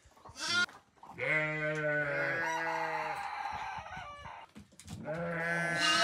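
Sheep bleating: a short bleat near the start, a long drawn-out bleat of about two seconds starting about a second in, and another beginning near the end.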